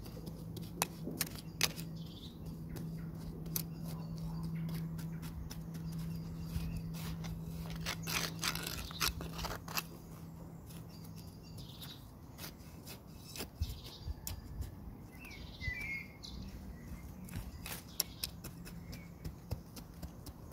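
Small hand trowel scraping and tapping in garden soil, a long run of short scrapes and clicks. A steady low hum runs through the first half and stops, and a bird chirps briefly a little past the middle.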